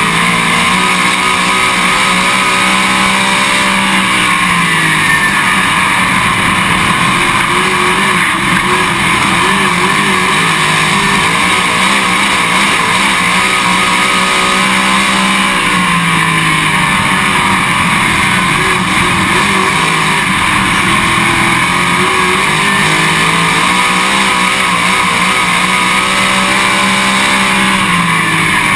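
Dirt late model race car's V8 engine running hard at racing speed. Its pitch falls and climbs again every few seconds as the car lifts for the turns and accelerates down the straights.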